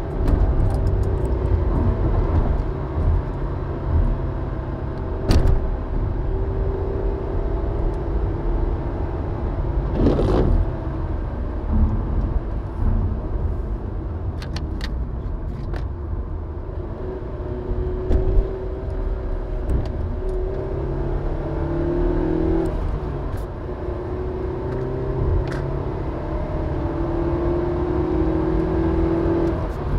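A car being driven on wet roads: a steady low road rumble under the engine's hum, which rises and falls in pitch as the car speeds up and slows. A few short knocks and a brief whoosh sound over it.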